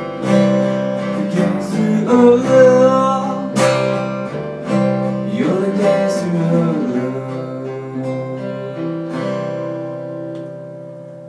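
Acoustic guitar strumming the closing chords of a song, the last chord about nine seconds in ringing out and fading away.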